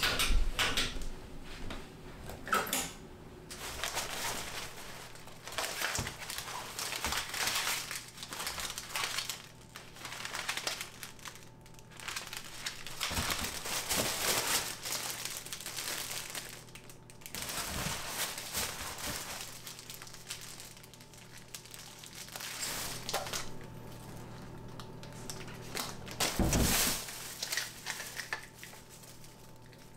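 Plastic grocery bags and a cloth shopping bag rustling and crinkling in irregular bursts as groceries are unpacked, with a few knocks of packs set down on a stainless steel counter.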